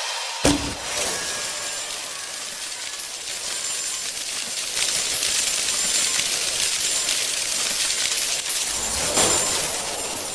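Sparkle sound effect: a sharp pop about half a second in, then a long, bright, tinkling hiss that swells again near the end.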